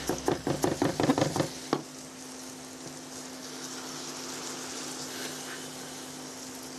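Kitchen knife chopping garlic cloves on a wooden cutting board in quick strokes, about five a second, stopping about two seconds in. Then a steady sizzle of champignon mushrooms frying in a pan.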